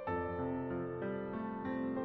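Background music: keyboard notes, likely piano or electric piano, played over held chords, with a new note struck every few tenths of a second.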